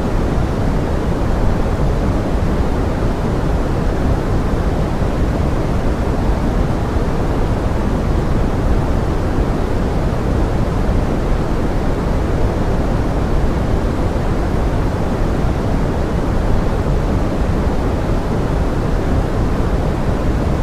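Steady pink noise, an even rushing hiss weighted toward the low end, blended with forest rain. It holds at one level with no separate drops or events.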